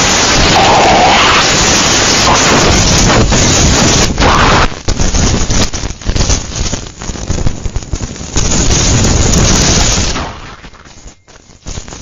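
Hurricane-force wind buffeting the microphone: a loud, rumbling noise that surges in gusts and drops away briefly near the end.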